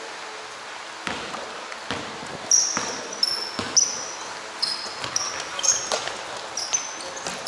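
A basketball bouncing on the court floor, a dozen or so irregular thuds, with short high-pitched sneaker squeaks on the court from about two and a half seconds in.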